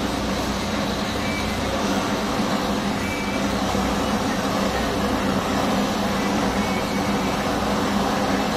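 Gas hand torch flame burning with a steady rushing noise and a low hum underneath, heating a ring for soldering.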